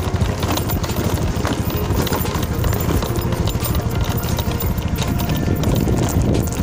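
Wind buffeting a handheld phone's microphone, with rhythmic footsteps on a rough dirt road.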